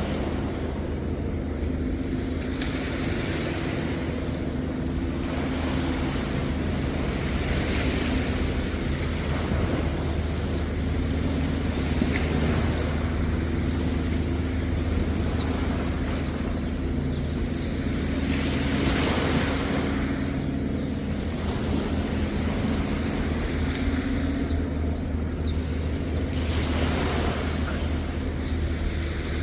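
Sea waves breaking and washing up the beach in repeated swells every few seconds, over a steady low engine hum.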